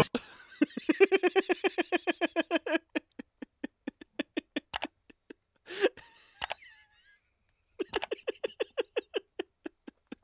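Two people laughing hard in long runs of quick ha-ha pulses, about five a second at first and spacing out later. A sharp gasp for breath breaks the laughter about six seconds in.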